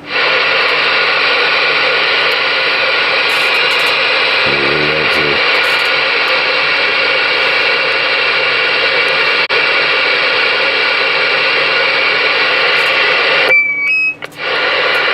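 Galaxy DX-98VHP CB radio's speaker giving out loud, steady band static with several steady whistling tones over it. About 13.5 seconds in the hiss cuts out briefly and a few short beeps sound, then the static comes back.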